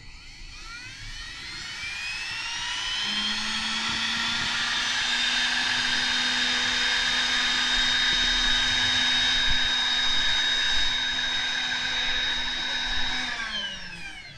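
CNC machine spindle motor spinning up with a rising whine, running at a steady high-pitched whine, then winding down about a second before the end.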